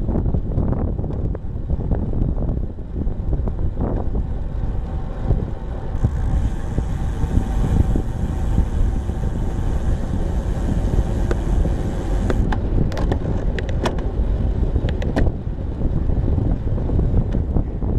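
Wind rumbling over the microphone of a camera on a moving bicycle, mixed with tyre noise on asphalt. A brighter hiss joins in for the middle stretch, and a run of sharp clicks and rattles follows about two-thirds of the way through.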